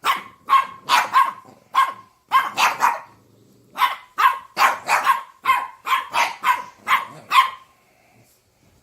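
A dog barking over and over in quick, sharp barks, about two to three a second, with a short pause a little after the first third. The barking stops shortly before the end.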